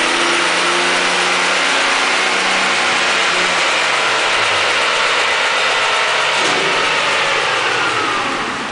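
BMW 335i's turbocharged straight-six, with stock exhaust and aftermarket downpipes, running hard at high revs on a chassis dyno. About three and a half seconds in, the engine note drops as the throttle closes, and the rollers and tyres spin down with a falling whine. The sound fades near the end.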